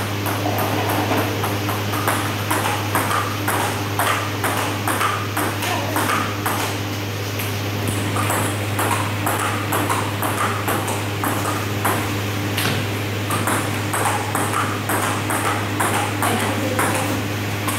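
Table tennis practice: celluloid-type plastic balls struck with paddles and bouncing on the table, a quick, fairly even series of sharp clicks, over a steady low hum.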